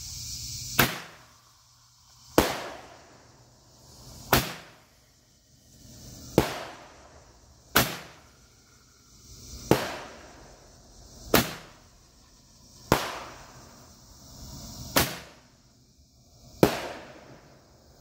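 A consumer firework firing repeatedly: ten sharp bangs about every one and a half to two seconds, with hissing between them.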